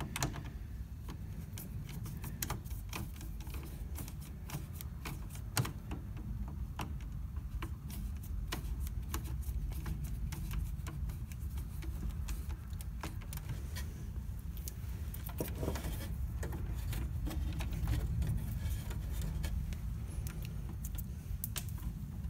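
Small, irregular metallic clicks and taps from a screwdriver and wires being worked into the terminals of a circuit breaker in an electrical panel, with one sharper click about five and a half seconds in. A steady low rumble runs underneath.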